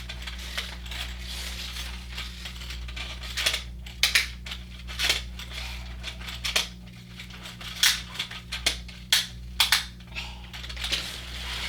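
Small die-cast metal pullback toy cars clicking and clattering against each other and the toy track in irregular light knocks, some in quick pairs, over a steady low hum.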